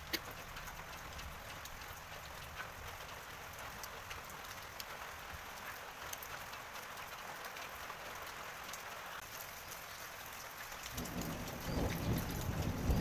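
Steady rain, an even hiss of falling drops with scattered faint ticks. Near the end a low rumble rises beneath it.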